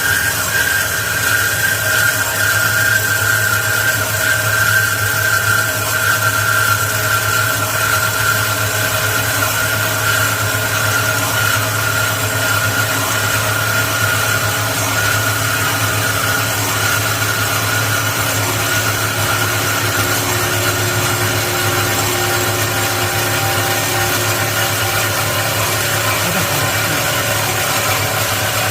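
WK-275SHP metal-cutting band saw running steadily: a constant low motor hum with a high whine that slowly drifts lower.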